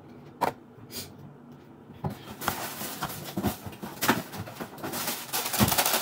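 Packaging being handled: a sharp click, then the crackly crinkling and rustling of a plastic chip bag and a small cardboard box, with a few knocks, growing busier and louder over the last few seconds.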